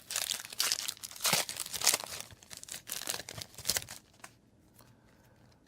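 Foil booster pack wrapper crinkling and tearing as the trading card pack is handled, in irregular crackly bursts that stop about four seconds in.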